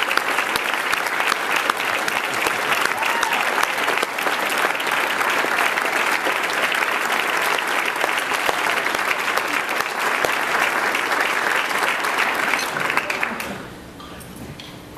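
A large audience clapping, dense and steady, which dies away about a second and a half before the end.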